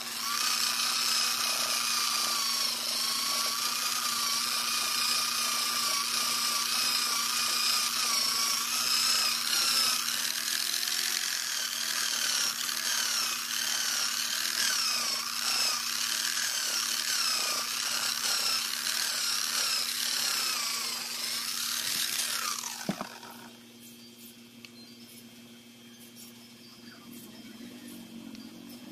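Electric angle grinder fitted with a wool buffing pad running at speed, its motor whine wavering in pitch as a carbon-fibre shift knob is pressed against the pad to polish it. About 23 seconds in it is switched off and the whine falls away as the pad spins down.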